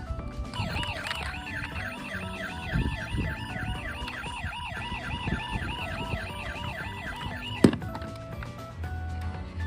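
Toy vehicle's electronic siren sounding a fast warble, about three rises and falls a second, that stops with a sharp click about seven and a half seconds in.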